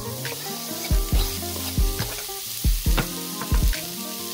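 Chopped onion sizzling steadily in a pot over medium heat as it is stirred with a wooden spatula. Background music with a regular beat plays underneath.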